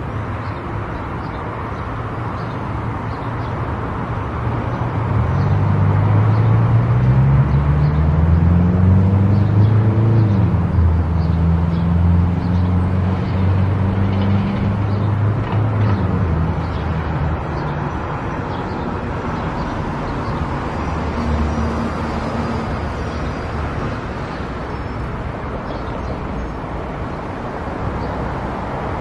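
Car driving on a highway with steady road and tyre noise. About five seconds in it gets louder for roughly ten seconds, with low droning tones that rise and fall before settling back to the steady rush.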